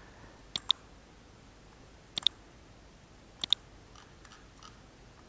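Computer mouse clicking three times, about a second and a half apart, each click a quick double snap. A few fainter ticks follow near the end.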